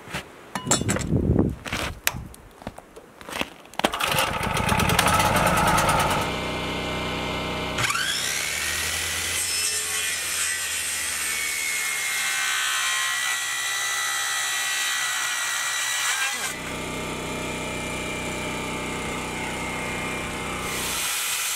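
Corded circular saw running and cutting across a thick birch slab, a steady machine sound with the blade in the wood. It starts about four seconds in, after a few knocks from the board being handled, and shifts abruptly a couple of times along the cut.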